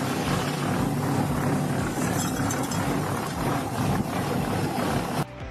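An engine running steadily under a loud, dense mechanical noise, cutting off suddenly near the end.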